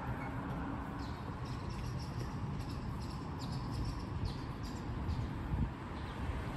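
Small birds chirping: a quick scatter of short, high chirps that stops about five seconds in, over a steady low outdoor rumble.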